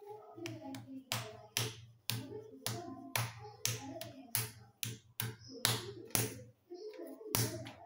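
Palms slapping and patting rolled chapati dough: a run of sharp, slightly irregular slaps, roughly two a second.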